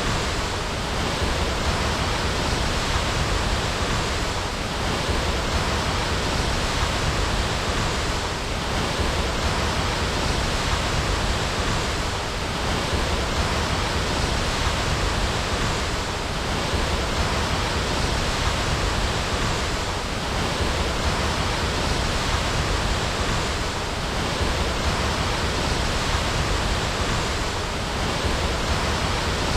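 Waterfall: a steady, dense rush of falling water, with a slight dip in loudness about every four seconds.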